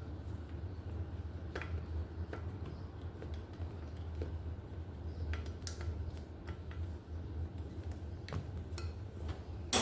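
Scattered light metallic clicks and taps of tools and brake parts being handled while a bicycle's V-brakes are set up, with a louder click near the end, over a steady low hum.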